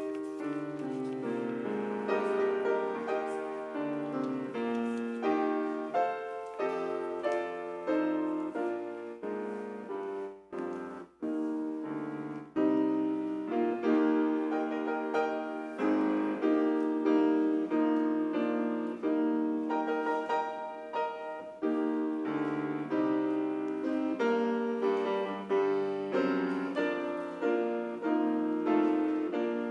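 Piano playing chords and a melody, the notes struck and dying away, with a short break about eleven seconds in.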